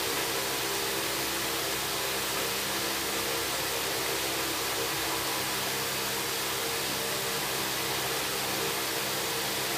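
Electric fan running: a steady rushing whir of air with a low, even motor hum underneath, unchanging throughout.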